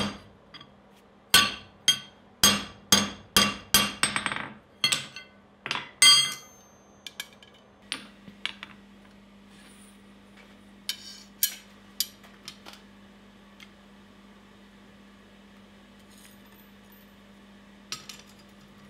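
Hand-hammer blows on a steel drift in the eye of a hot hammer head on the anvil, about a dozen ringing strikes over the first six seconds. Then a few light metal clinks of forging tools set down on the anvil, over a steady low hum.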